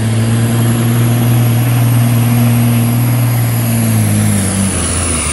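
Cabover semi truck's diesel engine running hard under heavy load as it pulls a weight sled, a loud steady drone. Near the end its pitch sags a little and the sound eases off as the truck slows under the sled.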